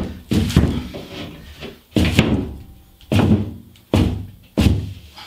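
Hardie cement board panel struck repeatedly with a knee to snap it along its knife-scored line: about five heavy thumps, a second or so apart.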